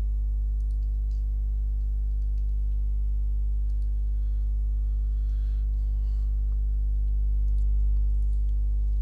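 Steady low electrical hum with a stack of unchanging overtones. A few faint computer keyboard and mouse clicks come near the middle.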